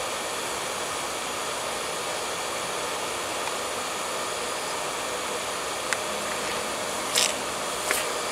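A steady, even hiss with no changes, and a few short sharp clicks in the last two seconds or so.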